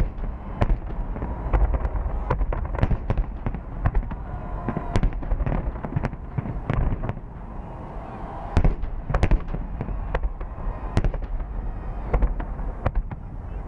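Fireworks salute: a rapid, irregular run of sharp bangs and cracks, several a second, over a continuous low rumble of distant bursts.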